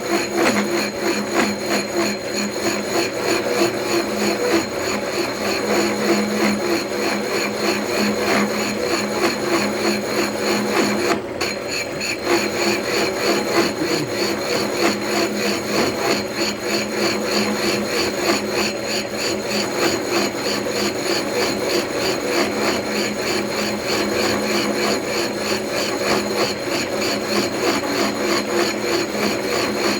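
Milling machine running with its cutter taking a cut in a metal workpiece: a steady machine hum with a fast, even rattle from the cutting.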